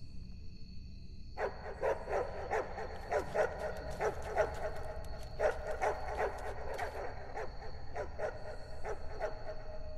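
A dog barking and yelping in quick, repeated calls, starting about a second and a half in.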